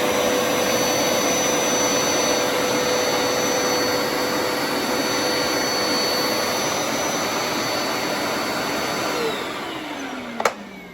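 Hoover Power Scrub Deluxe carpet cleaner running steadily with a whine over its motor noise. About nine seconds in it winds down, the whine falling in pitch, and a sharp click comes near the end.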